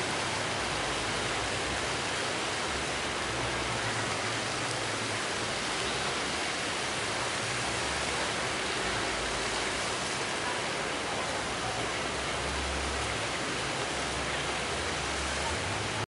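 Steady rushing noise with a low rumble that swells and fades, most likely wind buffeting the microphone outdoors.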